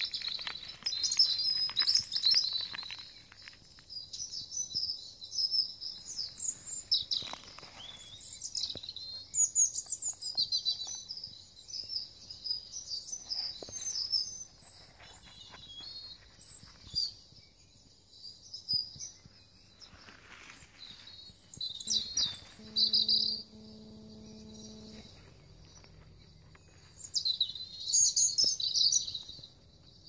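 Small songbirds chirping and calling in repeated short phrases, mixed with close crunching and rustling as frozen leaves, twigs and litter are picked up by a gloved hand.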